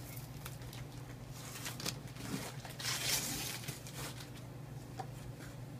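Rustling and tearing as a cardboard gift box is opened by hand, with scattered small crackles and one longer rip about three seconds in.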